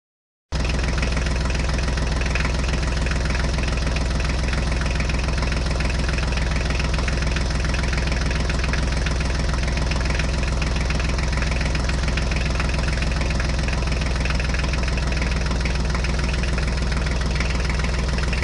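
Tractor engine idling steadily, starting about half a second in after a brief silence.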